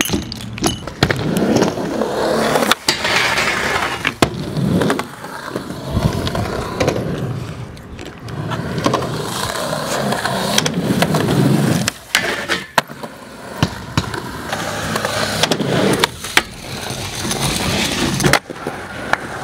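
Skateboard wheels rolling on concrete, broken by several sharp clacks of boards popping and landing, and a board grinding along a metal rail near the end.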